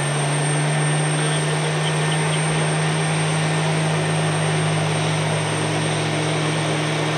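Twin-engine jet airliner taxiing with its engines at idle: a steady low hum under a broad, even hiss.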